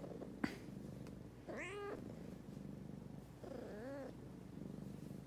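A cat meowing twice, the second meow lower and softer, over a steady low purr. A single sharp click about half a second in.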